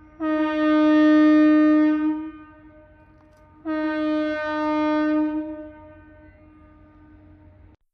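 A submarine's whistle (horn) sounding two long, steady blasts of about two seconds each, a second and a half apart, on one low pitch.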